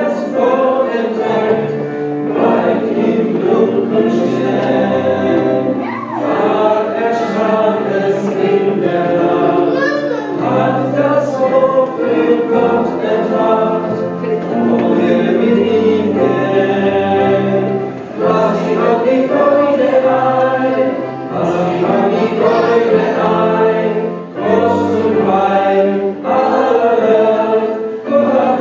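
A congregation singing a Christmas carol together in unison, accompanied by an electric keyboard playing chords and a bass line, phrase after phrase with short breaths between lines.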